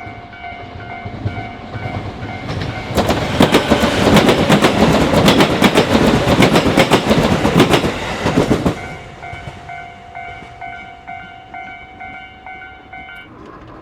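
Level-crossing warning bell ringing its steady repeated 'kan-kan' tone while a train runs through the crossing. The wheels clatter over rail joints from about two and a half seconds in to about nine seconds in, the loudest part. The bell stops shortly before the end.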